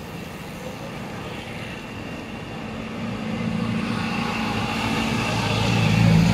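A passenger jeepney's diesel engine approaching and passing close by. Its low hum and road noise grow steadily louder from about halfway through and are loudest near the end.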